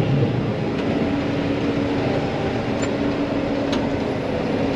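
John Deere 9500 combine running with a steady drone and a constant hum. Two faint ticks come near the middle.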